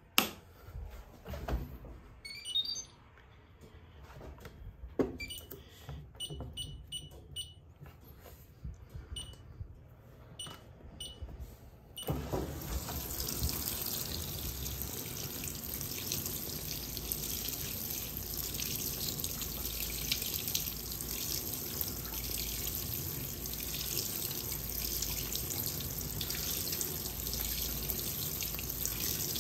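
Fisher & Paykel WL8060P1 washing machine being started: a loud click, then a run of short, high beeps. About twelve seconds in, the water inlet opens and water pours steadily into the tub as the machine fills for the wash.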